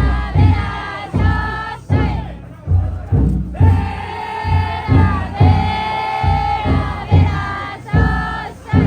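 A futon daiko festival float's big taiko drum struck in a steady beat while the crowd of bearers chants and shouts together in long drawn-out phrases.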